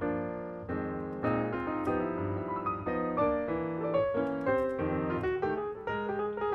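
Background piano music: a melody of separate notes over chords.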